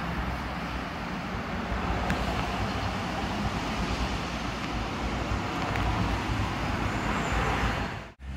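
Steady background hiss with no clear event in it, cutting out abruptly near the end.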